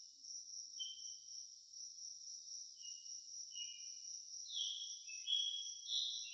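Crickets trilling in a steady, high-pitched chorus, with short bird chirps over it that come closer together and louder near the end.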